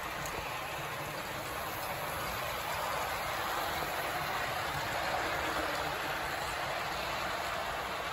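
Model train running on its layout track: a steady whirring, rolling noise from the locomotive's motor and the cars' wheels on the rails.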